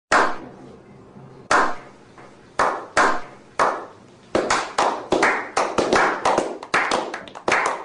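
A small group of men giving a slow clap. Single hand claps come a second or more apart at first, then speed up and crowd together into quicker clapping toward the end.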